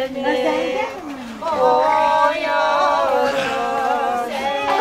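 Melismatic singing: long held notes with wavering ornaments, broken by a short dip about a second in.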